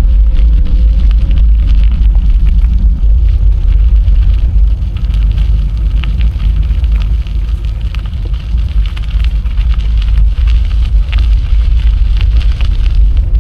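Wind buffeting the microphone of a camera on a moving bicycle: a heavy, steady low rumble with crackling over it.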